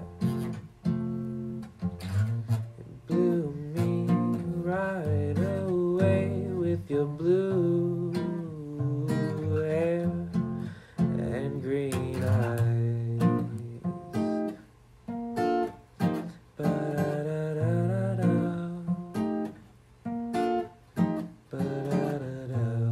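Acoustic guitar playing an instrumental passage of a song: strummed chords with single notes picked and bent over them.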